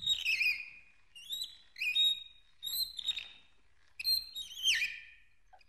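Squeaky hand-cranked spiralizer being turned: about six short, high-pitched squeaks, several falling in pitch, with pauses between turns.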